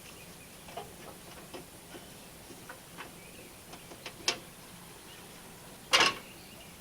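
Hand tools working on the radiator mounting bolts of a 1951 Willys Jeep: scattered light metallic clicks and ticks, a louder click about four seconds in, and a sharp metal clank near the end.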